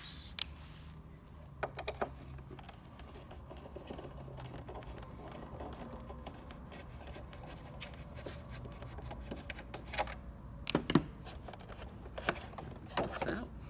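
Scattered light clicks and knocks of a Porsche Boxster instrument cluster's plastic housing being handled and pried at with a screwdriver to release its clips, louder and more frequent from about ten seconds in, over a low steady hum.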